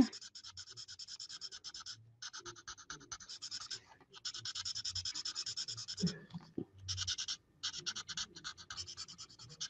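Stampin' Blends alcohol marker scribbling on cardstock: fast back-and-forth scratching strokes of the marker tip, in runs broken by a few short pauses.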